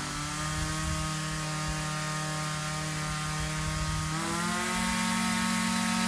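Small two-stroke engine running steadily, its speed picking up about four seconds in.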